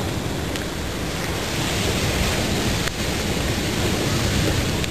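Steady rushing wash of ocean surf, heaviest in the low rumble, with no calls or voices over it.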